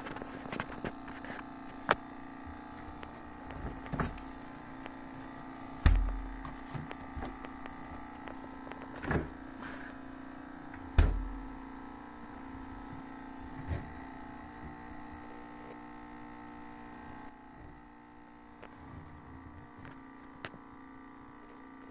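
American Home personal refrigerator humming with a steady drone, the excessive running noise that the owner sets out to cure with rubber pads under its feet. A few sharp thumps or knocks come through it, the loudest about six seconds and eleven seconds in.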